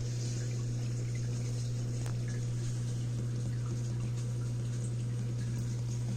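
Aquarium water bubbling over a strong, steady low hum from the tank's pump.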